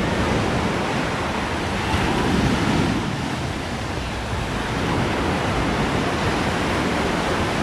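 Small ocean waves breaking and washing up a sandy beach in a steady surf wash, swelling a little about two seconds in.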